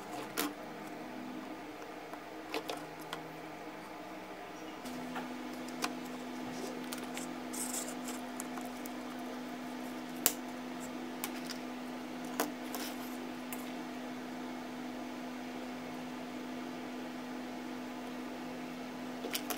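Scattered small clicks and taps of a pager's plastic case and circuit board being handled and pried apart, over a steady background hum; a steady humming tone joins the hum about five seconds in.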